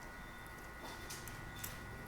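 A few faint, light clicks and taps from small parts being handled during the disassembly of a small portable speaker.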